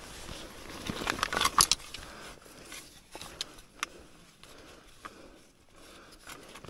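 Rustling and clattering handling noise: a burst of sharp knocks and clinks about a second and a half in, then scattered single clicks.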